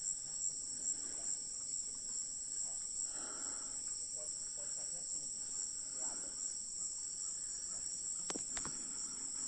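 Steady, high-pitched chorus of insects, such as crickets, droning without a break, with a couple of faint clicks near the end.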